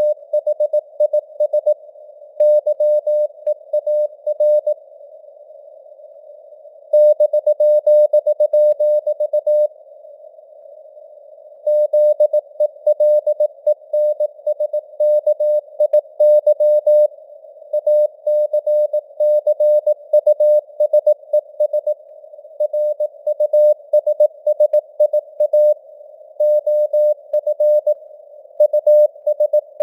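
Morse code at 18 words per minute, a single mid-pitched tone keyed on and off in dots and dashes, spelling out news headlines. A narrow band of simulated radio hiss surrounds the tone. The keying pauses twice for about two seconds in the first third.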